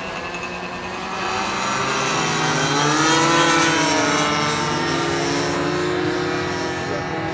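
Several Avicraft Panic model biplanes' .46 to .55-size nitro glow engines buzzing overhead at different pitches. The pitch rises and then falls as one plane sweeps past, loudest about three seconds in.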